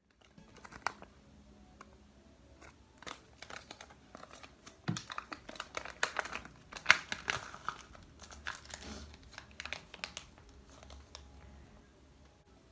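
Plastic sheet-mask packet crinkling as it is handled and torn open: a run of sharp crackles, busiest and loudest around the middle, thinning out near the end.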